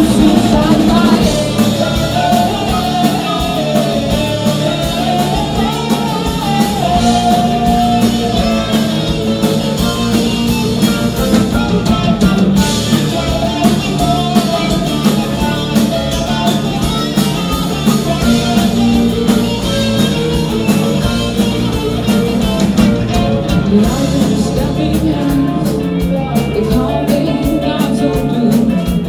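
Hard rock band playing live: two electric guitars, bass guitar and drum kit, with a woman singing.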